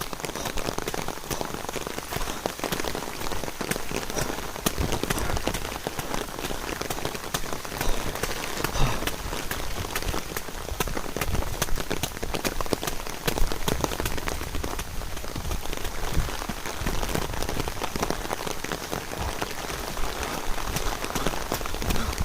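Steady rain, with a dense run of sharp drop impacts close by, and a couple of louder drops about 8 and 9 seconds in.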